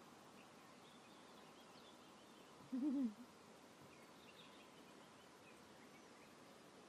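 An African wild dog gives one brief wavering whine, its pitch wobbling up and down, about three seconds in. Faint bird chirps sound in the background.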